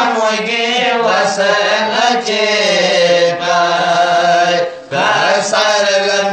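A small group of men chanting a Manipuri marifat devotional song without instruments: long, wavering held notes, with a short pause for breath just before five seconds in.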